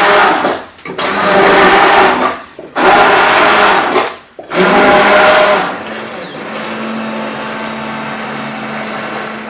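Hand-held stick blender puréeing chunks of cooked butternut squash in stock in a saucepan. It runs in bursts of about a second with short pauses, its motor whine rising at the start of each burst. From about six seconds in it runs steadily and more quietly.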